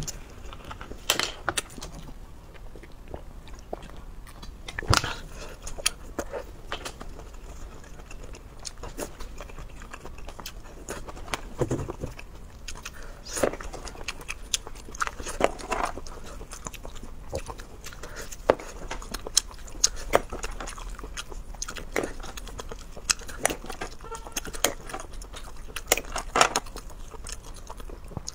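Close-miked eating sounds: irregular crackles and clicks as shrimp shells are peeled and the meat is bitten and chewed, with wet mouth sounds.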